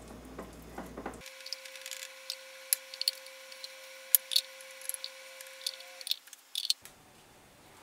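Wooden spoon scraping and knocking against a plastic jar and glass baking dishes while spreading mashed yams, a run of light clicks and taps that stops about seven seconds in, over a faint steady hum.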